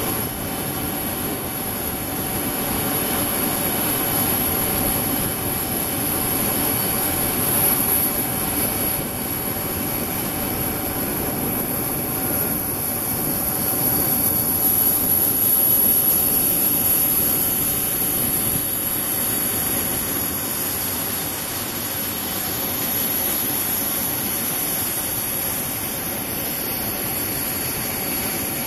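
Jet engine noise of an Ilyushin Il-76 freighter coming in to land, its four turbofans running with a steady high-pitched whine over the rushing sound. The sound swells and eases, loudest about halfway through as the aircraft touches down.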